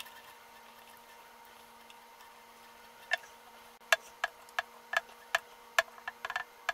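A small hand tool turning in a wooden ukulele headstock where the tuning machines' small mounting screws go, giving sharp separate clicks. The clicks start about three seconds in, come roughly twice a second, and crowd together near the end.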